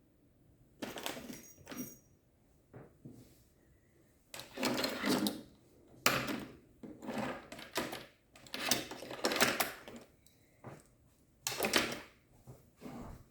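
Irregular handling noises: objects being moved about, rustled and knocked, in a dozen or so short bursts with quiet gaps between them.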